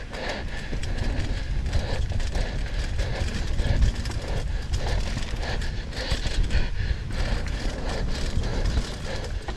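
Mountain bike riding fast down a rough dirt trail: tyres rolling over the ground with a steady low rumble, and the bike rattling and knocking over bumps.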